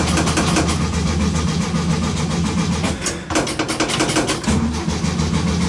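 A 1967 Volkswagen bus's air-cooled flat-four engine running unevenly, faltering about three seconds in and then picking up again. The engine is starved of fuel: the tank has run dry.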